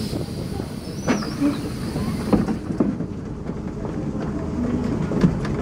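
Tram running slowly along street rails, heard from inside the car: a steady low rumble with scattered clicks and knocks from the wheels and running gear, and a brief high squeak about a second in.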